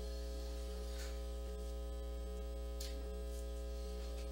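Steady electrical mains hum made of several unchanging tones, with a couple of faint clicks about a second in and near three seconds in.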